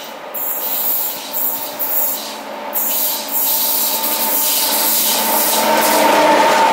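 SNCF BB 17000 electric locomotive approaching and passing with its train of double-deck coaches. A running hum with a steady whine near 1 kHz grows louder as it comes by.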